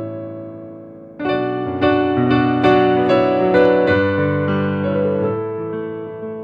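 Slow piano music: a held chord dies away, then new chords are struck about a second in and roughly once a second after.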